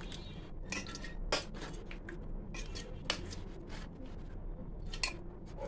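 Metal spoon scraping and clinking against a steel bowl and a glass jar as chunks of raw-mango pickle in oily masala are spooned into the jar. A few sharp clinks stand out from the wet scraping.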